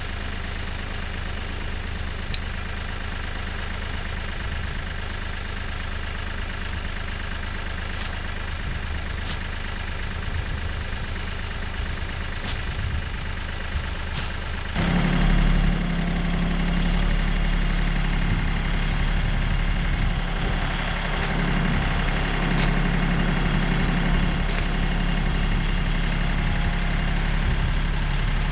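Tractor engine running steadily; about halfway through it suddenly gets louder, with a stronger low hum.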